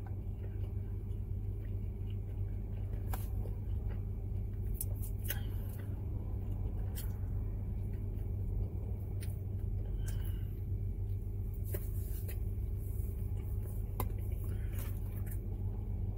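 Steady low hum of an idling car heard inside the cabin. Scattered short crunches of chewing on a fried chicken sandwich break through it a dozen or so times.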